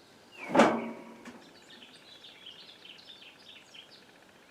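Birds chirping faintly, a run of quick high chirps, after one brief louder call just over half a second in.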